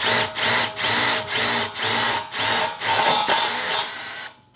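Milwaukee M12 FID2 impact driver driving a screw into thin sheet material, running in pulses about three a second. It cuts off suddenly near the end: the screw-driving mode's auto-stop, which shuts the driver off once the screw head meets the material even with the trigger still held.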